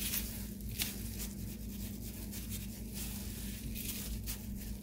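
Faint rustling and crunching of orange breadcrumbs as a fish fillet is pressed into them with a plastic-gloved hand, over a steady low hum.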